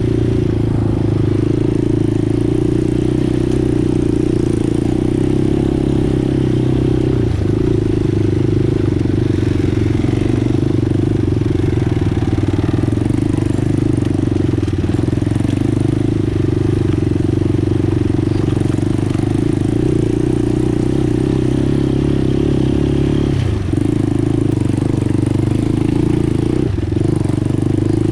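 ATV engine running steadily on the trail, its pitch dipping briefly three times, at about 7, 23 and 27 seconds in, as the throttle eases off or it shifts.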